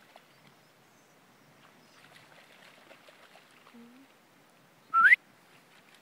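A single short, loud whistle rising in pitch, about five seconds in, over faint outdoor background.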